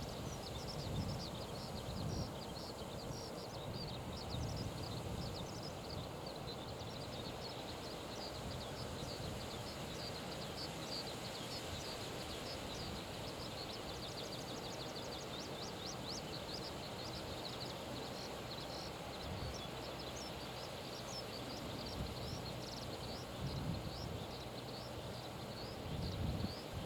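Strong wind gusting over the microphone in low rumbles, with small birds chirping and twittering rapidly and continuously above it.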